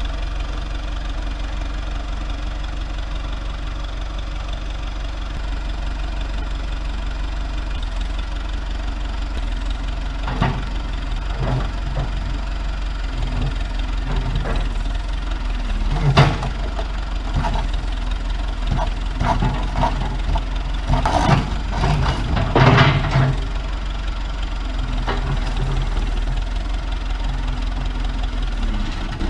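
Diesel engine of a JCB 214 backhoe loader running steadily under load. From about a third of the way in come scattered metal clanks and bangs, loudest near the middle and about three-quarters through, as the junk car on the loader forks is swung and set down onto a trailer.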